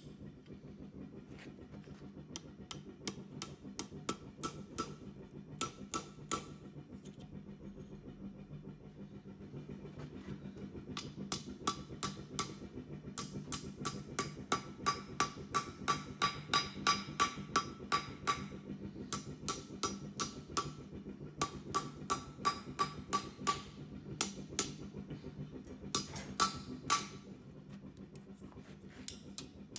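Hand hammer striking the rebar arrowhead's socket as it is shaped around a steel mandrel on the anvil: runs of quick ringing blows, about three a second, loudest and most continuous through the middle, with short pauses between runs.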